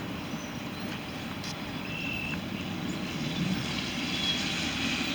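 Steady low background rumble, with a brief faint high tone about two seconds in.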